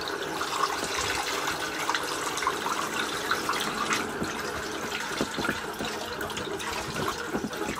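Steady sound of running water, with small scattered clicks and taps as hands work the handle fitting of a leaking through-hull seacock.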